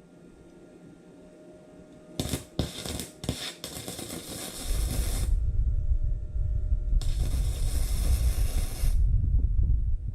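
Gasless flux-core semi-automatic wire welder's arc sizzling: a few short starts about two seconds in, then a run of about a second and a half, a pause, and a second run of about two seconds. A low rumble sets in about halfway through and continues.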